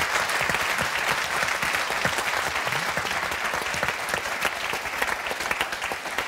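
Studio audience applauding, a dense patter of many hands clapping that eases off slightly in the last couple of seconds.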